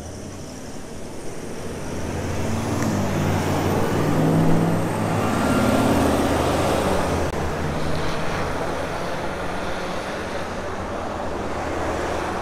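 A motor vehicle passing on the road, its engine and tyre noise swelling to loudest about halfway through and then easing off slightly.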